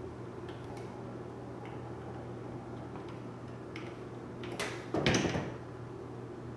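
Plastic LED flush-mount ceiling light being handled and fitted to its ceiling mounting bracket: a few light clicks, then a louder scrape and knock about five seconds in as the fixture is pressed up and seated against the ceiling.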